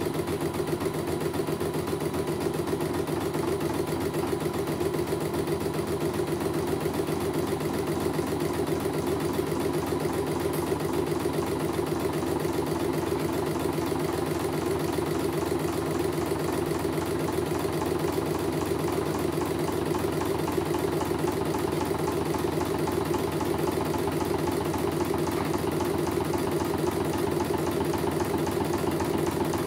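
CNY computerized embroidery machine stitching out a design: the needle runs at a steady, fast, even rate while the embroidery unit shifts the hoop.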